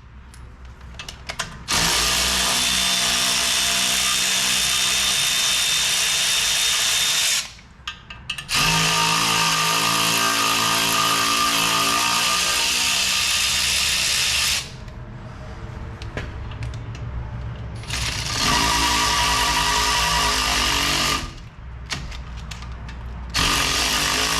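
Power ratchet running in several long bursts of a few seconds each, with short pauses and quieter stretches between, spinning out the wheel hub bearing's mounting bolts.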